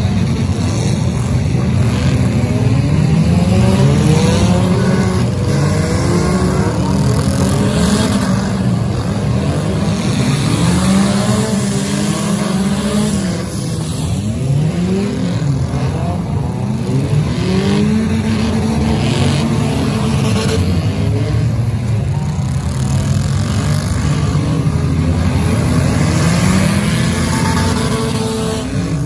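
Several demolition derby cars' engines revving hard at once, their pitches rising and falling over one another, with a few sharp knocks mixed in.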